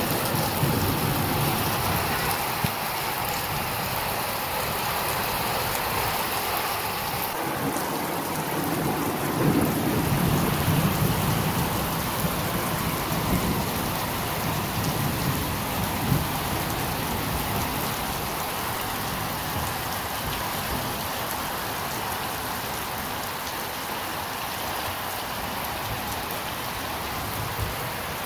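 Heavy rain falling steadily onto a concrete rooftop and its surroundings, an even hiss of rain throughout. Low rumbles swell under it at the start and again around ten seconds in.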